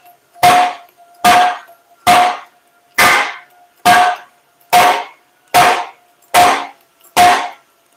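Hammer striking a 3/8-inch steel reinforcement plate on a truck's rear axle housing: nine evenly spaced blows about one a second, each with a short metallic ring. The blows force the plate down so it takes the curved shape of the housing before welding.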